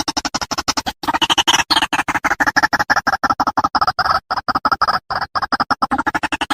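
White-breasted waterhen calling: a fast, unbroken series of harsh croaking notes at about eight a second, growing louder about a second in. It is a recorded call played as a lure.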